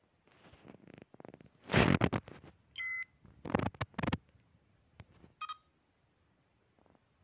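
Star Trek LCARS-style computer interface sound effects playing as the launcher's panels open: a run of short electronic blips, the loudest about two seconds in, a held beep just before three seconds and a short chirp about five and a half seconds in.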